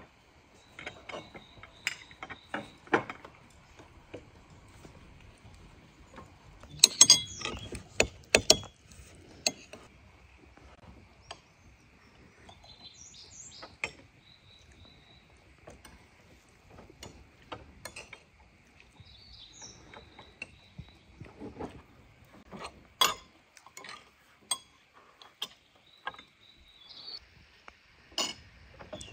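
Forks clinking and scraping on china plates and against tea glasses as people eat cake, in irregular sharp clicks with a loud flurry about a quarter of the way in. Small birds chirp now and then.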